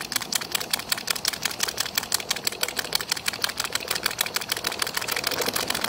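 Chiltern model horizontal mill steam engine running with a fast, even beat of exhaust puffs and clatter. It is running cold on only a little steam, started before it was warmed through.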